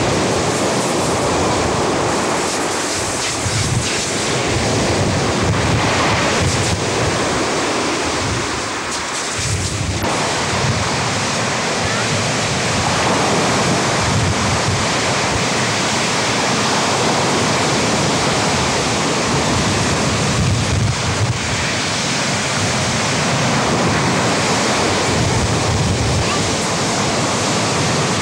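Heavy surf from a rough sea breaking steadily onto a shingle beach, with wind buffeting the microphone in gusts.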